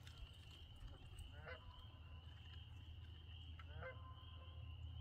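Faint outdoor evening sounds: a steady high insect trill, with two short, distant animal calls about two seconds apart.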